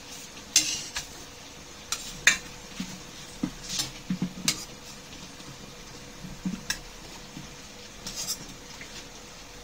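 Steel slotted spoon knocking and scraping against a black iron kadai as stuffed bitter gourds are turned in it: irregular clinks, the loudest just after the start and a little over two seconds in.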